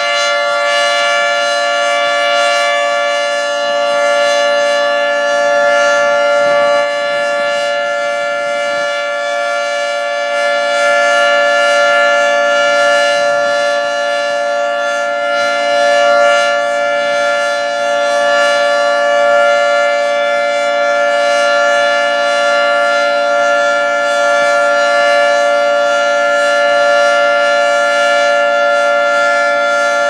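Federal Signal 2T22 two-tone outdoor warning siren sounding a loud, steady chord at full pitch for its monthly test. The level swells and eases slightly as the rotating horns sweep past.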